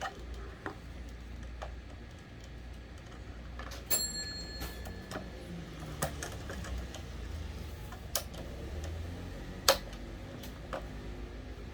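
Scattered clicks and taps of small plastic and metal parts being handled while an electric fan is taken apart for repair, with one click about four seconds in ringing briefly like a small piece of metal and a sharper click later on.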